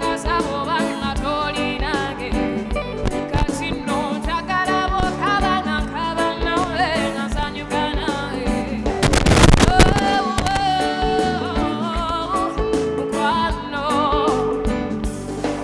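Live band music with a lead singer over the instruments; about nine seconds in, a loud noisy crash lasting around a second rises over the music.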